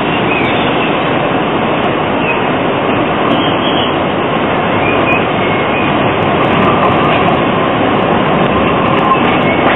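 Modern articulated low-floor tram, a Socimi car, running toward the listener along curved street track amid city traffic, growing slightly louder as it nears. Its wheels give a few faint, brief squeals on the curve.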